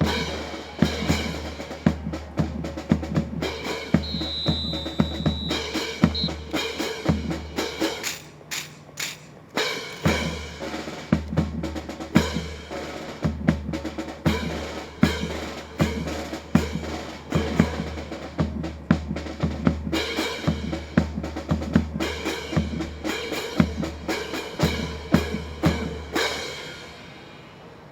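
Marching percussion section playing a fast, even rhythm on snare and bass drums, with a short break about eight seconds in. The drumming stops near the end.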